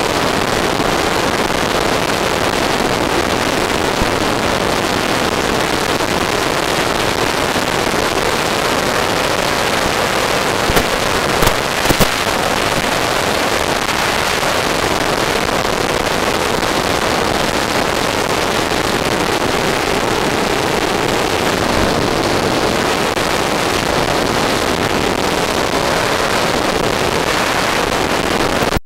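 Steady rush of airflow noise picked up by the onboard camera of a radio-controlled model airplane in flight, with a few short crackles near the middle.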